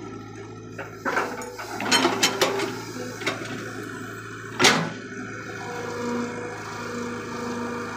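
E120B hydraulic excavator's diesel engine running steadily while it digs. A run of knocks and clatters comes from about one to three seconds in, and a single sharp, loud knock just before five seconds.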